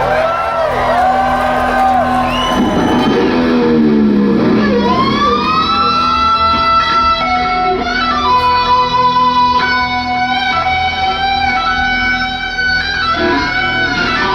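Electric guitar played live at concert volume. For the first few seconds it makes swooping bends and dives in pitch, then it settles into long held notes, all over a steady low held note.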